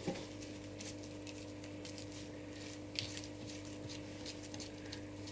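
Faint, scattered squishes and small clicks of glitter slime being folded and worked by hand in a tub, over a steady low hum.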